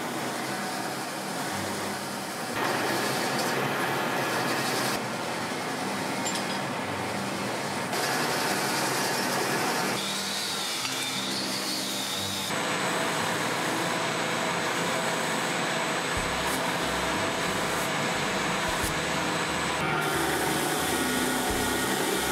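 Drill press spinning a wire wheel, with rusty lathe parts held against it to strip the rust. The sound changes abruptly several times.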